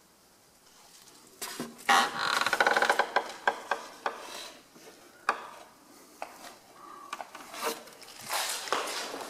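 Footsteps crunching and scraping over gritty debris on a hard floor, with scattered clicks and clinks, busiest about two to three seconds in.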